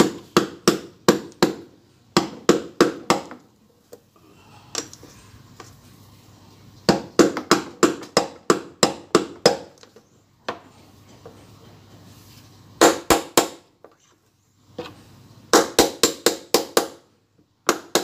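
Hammer striking, tapping a new bearing into the bearing housing of a front-loading washing machine tub. The strikes come in quick runs of about three a second, with short pauses and a few single blows between the runs.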